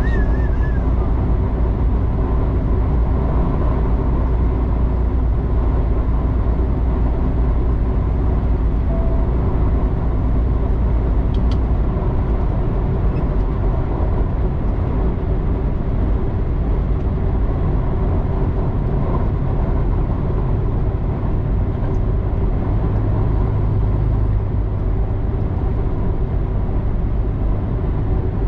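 Semi truck's diesel engine and tyres at highway cruising speed, heard from inside the cab as a steady low drone. A deeper hum comes in over the last few seconds.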